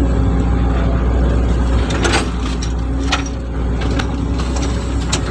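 Hitachi excavator's diesel engine running steadily with a low drone, with several sharp clanks or knocks spread through.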